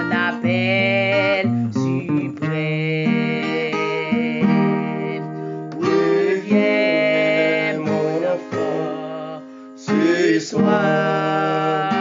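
Background music led by guitar, with sustained chords and a wavering melody line over them.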